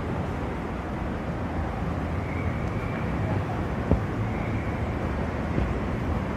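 City street ambience: a steady low rumble of traffic with faint voices of passers-by, and a single sharp knock about four seconds in.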